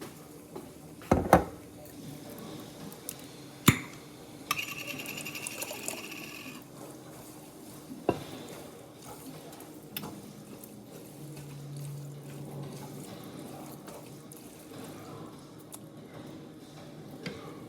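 Jarred spaghetti sauce being added to a pot of noodles and meat: a few sharp knocks of kitchenware against the pot and a couple of seconds of a higher scraping, rasping sound about five seconds in.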